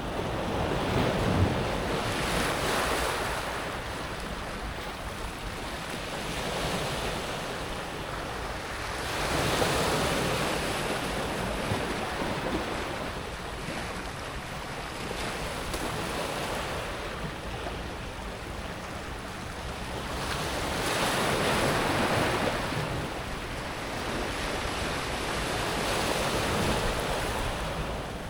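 Small sea waves breaking on a pebble beach and washing back over the stones, the surf noise swelling and fading in slow surges every several seconds.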